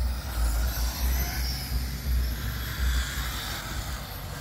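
Wind buffeting the microphone in uneven low gusts, with the faint rising and falling whine of radio-controlled cars racing on asphalt.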